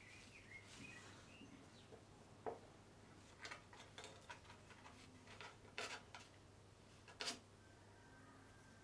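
Faint handling sounds at a workbench: a soft rustle of paper towel near the start, then scattered light clicks and taps as thin wooden headstock veneer pieces are laid on the headstock and pressed together. A few sharper clicks come near the middle and near the end, over a faint steady low hum.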